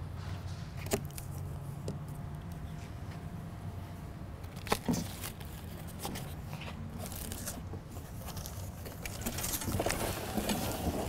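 Cardboard bicycle shipping box being opened and handled: scattered scrapes and knocks, with a sharper knock about five seconds in and a stretch of rustling near the end.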